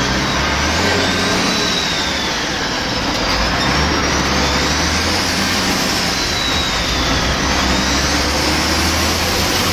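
Cummins C-series inline-six diesel of a DAF bus running under way, heard loud from inside the cab, with a steady low drone and a high whine that rises and falls several times.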